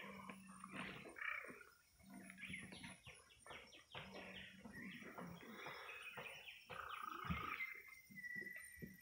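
Wild birds chirping and calling in quick runs of short notes, with one held whistle near the end. A single dull knock sounds a little past seven seconds.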